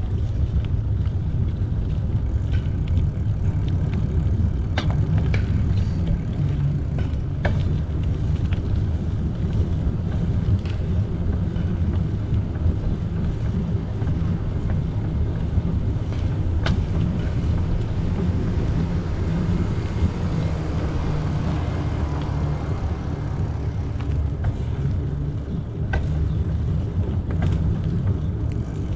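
Steady low wind rumble on the microphone of a moving bicycle, with a few light clicks and ticks from the bike and trail.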